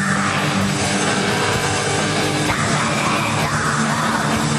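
Heavy metal band playing loudly while a young girl screams the lead vocal into a microphone in a rough, growling style over distorted guitar.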